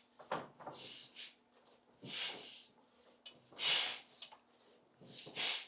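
1967 Triumph TR6 650 cc parallel-twin engine turned over by hand with the cylinder head off, the freshly fitted pistons sliding up and down in their bores. There are five soft, airy whooshes about a second and a half apart, with no scraping.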